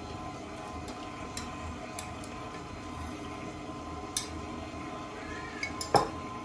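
Stand mixer with a dough hook running at its lowest speed, a steady motor hum, as the yeast starter is being added. A few light clinks and knocks of utensil or bowl, the sharpest near the end.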